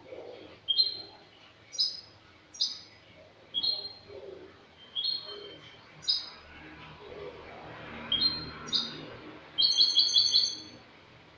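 European goldfinch (jilguero) singing: short, high chirped notes spaced about half a second to a second apart, with a quick run of rapidly repeated notes near the end.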